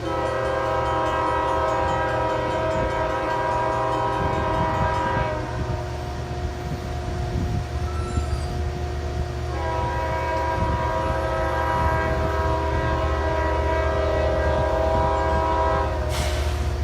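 Diesel locomotive air horn sounding two long blasts, a chord of several steady notes, with a pause of about four seconds between them, over the steady low rumble of the locomotive's diesel engine. A short hiss comes near the end.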